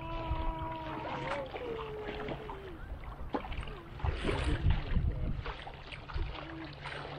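Legs wading through shallow lake water, sloshing and splashing, loudest about four to five seconds in as the wader comes closer. A distant voice calls out in drawn-out tones during the first few seconds.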